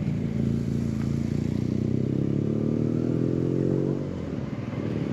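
Harley-Davidson Dyna Fat Bob's V-twin engine pulling under acceleration, its note rising steadily for about two seconds, then falling back about four seconds in.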